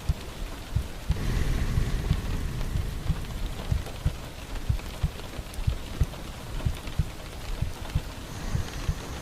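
Steady rain, with heavy drops knocking irregularly on a surface a few times a second. About a second in, a swell of low rumbling noise rises and fades over a second or so.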